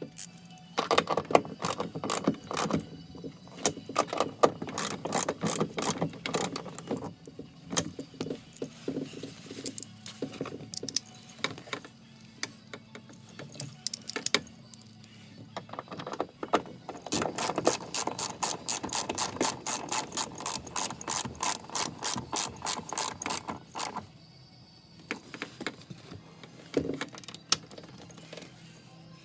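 Ratchet wrench clicking in quick, even runs with short pauses between them as bolts are turned. The longest run comes in the second half, followed by a quiet gap.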